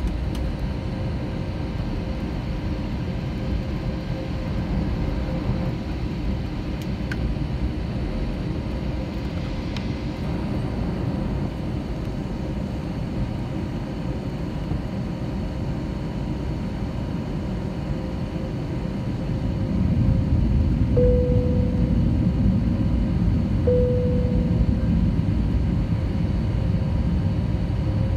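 Airbus A321 cabin noise on the ground: a steady low rumble from the engines with a faint steady hum, growing louder about two-thirds of the way in. Two brief tones sound a few seconds apart soon after.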